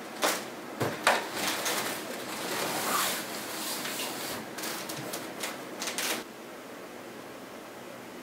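Dark grey fabric storage box being pushed onto a cupboard shelf: a few knocks and scraping against the shelf and the box beside it. The handling stops about six seconds in, leaving a steady hiss.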